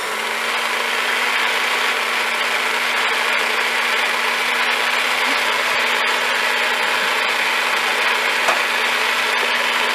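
Corded hand-held immersion blender running steadily in a pot, puréeing chickpeas, tahini and lime juice into hummus: a constant motor whir with a steady hum.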